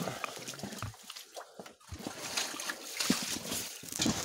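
Footsteps and rustling through ferns and undergrowth: a run of irregular crunches and brushing, with handling knocks on the camera.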